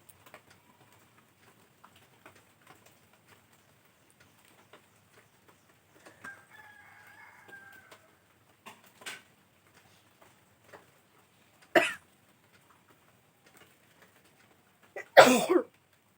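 A woman sneezing twice: a sharp sneeze about twelve seconds in and a louder one near the end, with a brief intake just before it. A smaller burst comes around nine seconds, as she tries to set off the sneezes by tickling her nose.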